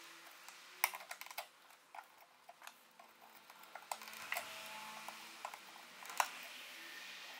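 Light, irregular clicks and taps of small wooden kumiko strips being pressed into a wooden lattice grid by hand, over a steady hiss. A quick cluster of clicks comes about a second in, and a single sharp click about six seconds in.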